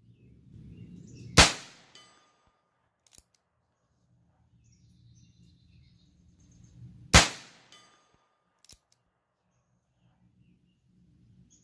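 Two gunshots from a Heritage Rough Rider .22 LR single-action revolver, about six seconds apart, each cracking sharply and fading quickly. A faint click follows each shot a second or two later.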